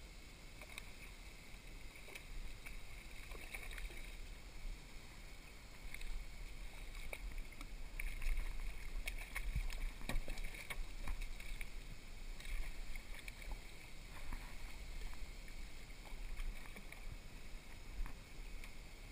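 Water splashing beside a small boat as a hooked tarpon thrashes at the surface, loudest from about eight to eleven seconds in, over a steady low rumble and a few sharp knocks.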